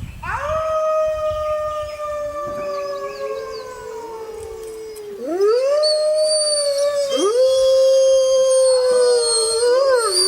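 Wolves howling. One long howl rises quickly and then slowly falls, and a lower howl joins it. From about halfway on, further howls rise and overlap, with several voices howling together near the end.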